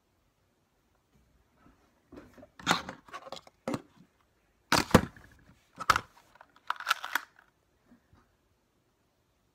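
Plastic toy pistols being picked up off a table and handled: a run of sharp clicks, clacks and knocks beginning about two seconds in and stopping near the end.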